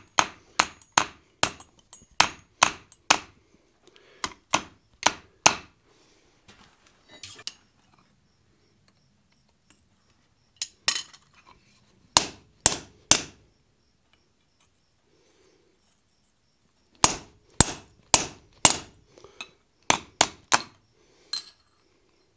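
Hand hammer striking a hot punch to drive a hole through red-hot steel on the anvil, sharp metallic blows with a short ring. They come in bursts of several strikes about two a second, with pauses of a few seconds between bursts.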